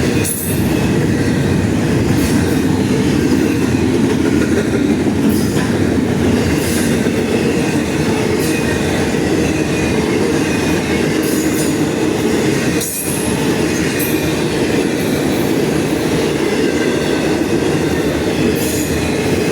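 Norfolk Southern intermodal freight train passing close at speed: a loud, steady rumble of rolling cars and wheels, with brief clicks as wheels cross rail joints.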